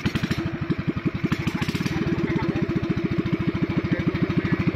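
Small pull-start gasoline boat engine, just fitted with a new carburetor, running steadily at a fast, even putt-putt right after being started.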